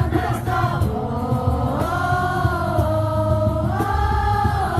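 Live rock band playing, with long held wordless sung notes that step up in pitch about two seconds in and again near the end, over heavy bass and drums.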